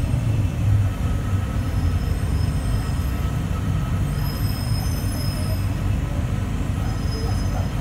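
Cabin sound of a rubber-tyred Bombardier Innovia APM 100 light-rail car running into a station: a steady low rumble with a faint high whine over it.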